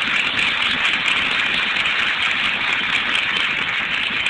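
Audience applauding steadily, an even clatter of many hands, on an old recording that cuts off the highs.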